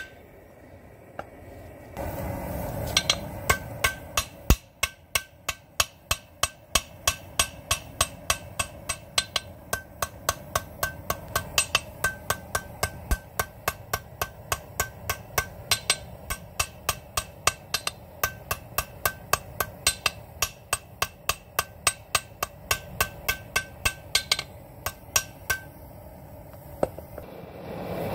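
Hand hammer beating a length of rebar on a makeshift steel-block anvil bedded in chain: a long, even run of blows, about three a second, each with a short metallic ring. A steady rushing noise runs underneath.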